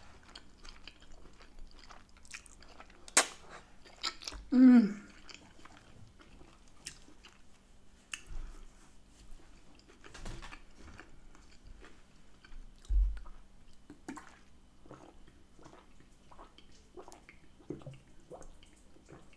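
Close-miked chewing of a mouthful of spaghetti bolognese topped with crunchy raw chopped onion: wet mouth clicks and smacks throughout, with a short falling 'mm' about four and a half seconds in and a dull thump near thirteen seconds.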